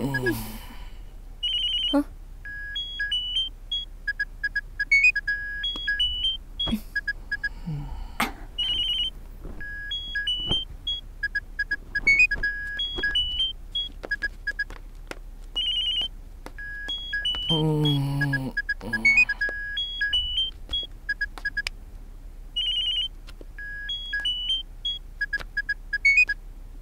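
Mobile phone ringtone playing a short electronic melody over and over, ringing unanswered until it is picked up. About two-thirds of the way through there is a brief low vocal sound from a person.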